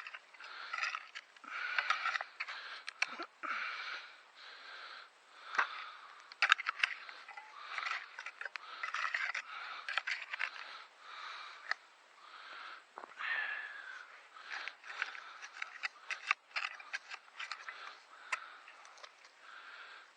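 Potatoes being dug by hand: a digging tool scrapes and crunches through soil, with many irregular sharp clicks. The digger's heavy breathing runs alongside.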